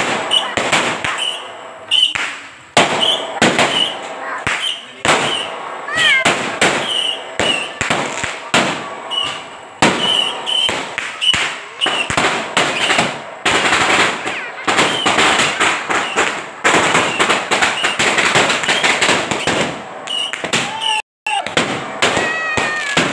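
Fireworks going off in quick succession: a dense run of sharp bangs and crackles, with short whistles between the bangs.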